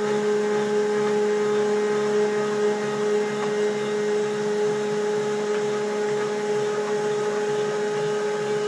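Stepper motors of a home-built LinuxCNC machine driving the gantry on a rapid traverse along the Y axis at constant speed. They make a steady, even-pitched whine with a strong middle tone over a lower one.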